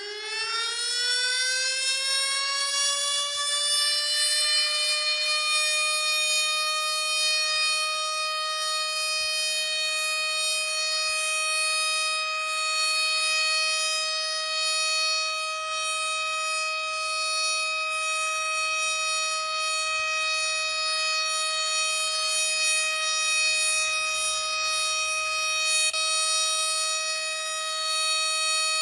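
Civil defence siren winding up, its pitch rising over the first five or six seconds, then holding one steady wail. It is the minute-long remembrance siren that calls a minute of silence.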